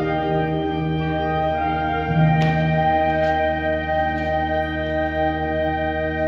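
School concert band holding sustained wind chords over a strong low bass note. A bright struck percussion note rings out about two seconds in, with softer strikes about once a second after it.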